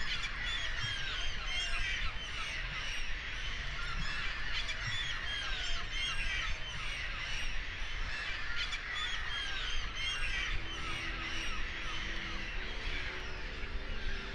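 A large flock of seabirds calling over one another in a constant clamour of short, overlapping cries, with wind rumbling on the microphone. Soft music with held notes comes in underneath about ten seconds in.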